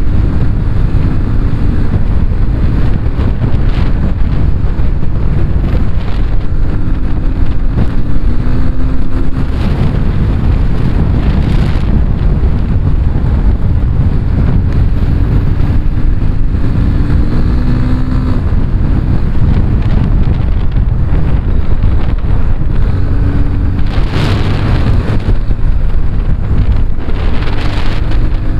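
Yamaha FZ25's 249 cc single-cylinder engine running through its stock exhaust at highway speed, its note climbing several times as the rider opens the throttle. Heavy wind buffets the microphone throughout.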